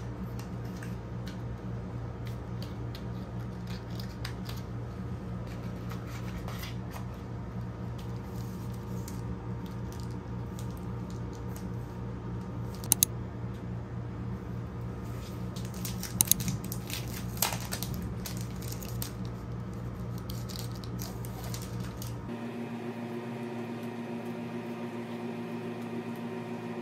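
Clear plastic sleeves of sticker sheets crinkling and clicking now and then as they are handled, the sharpest clicks coming in two clusters partway through. Under them runs a steady low hum that changes tone near the end.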